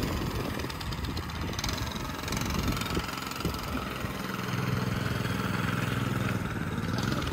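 Small motorbike engine running, rough and uneven at first, then holding a steady low drone from about four seconds in.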